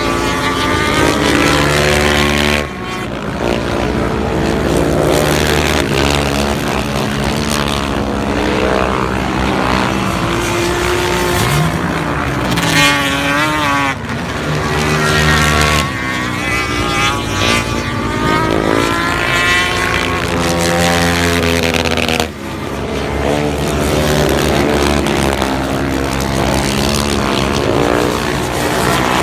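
Several racing engines of ice-racing machines running hard, their pitch rising and falling as they accelerate, lift off and pass, with several overlapping. The sound breaks off sharply for a moment a few times.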